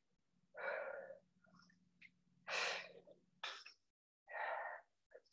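A person breathing hard during an exercise set: about four noisy breaths, one every second or so.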